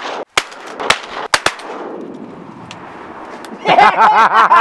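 Shotgun firing at ducks: three sharp bangs in the first second and a half, each followed by a fading rush of noise. Near the end a loud, fast run of pitched calls starts up.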